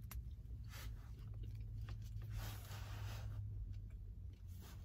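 A person chewing a mouthful of a bacon, egg and cheese breakfast sandwich on a soft bun: faint, close chewing with small mouth clicks over a low steady hum.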